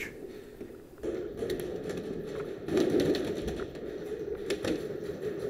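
Indoor airsoft game: after a short lull, a handful of irregular sharp clicks and taps sound over a steady low hum.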